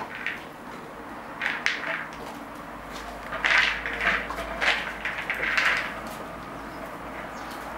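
A horse nudging a hard plastic treat ball across rubber stable mats, with bursts of rattling from the treats inside as it rolls. Over the second half the horse is nosing at and crunching treats dropped on the floor.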